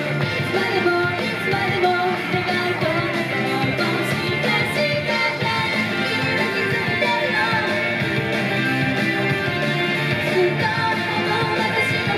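Live idol pop song: a woman singing into a handheld microphone over loud, continuous backing music.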